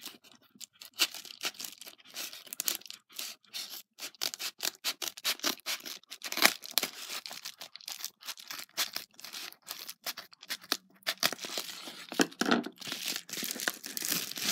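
Scissors cutting along the edge of a padded paper mailer in a rapid series of short snips and crunching strokes. Toward the end the paper crinkles and rustles as the cut-open envelope is handled.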